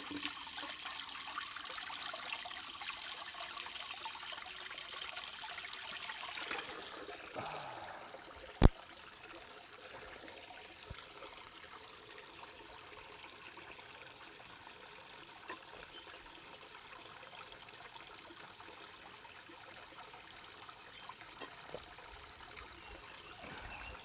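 Spring water dribbling off rocks into a stainless steel water bottle as it is filled, louder for the first six seconds or so. Then a single sharp click about nine seconds in, followed by a fainter steady trickle of the spring.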